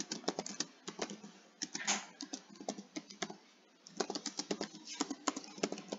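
Typing on a computer keyboard: quick runs of key clicks, with a short pause a little past halfway.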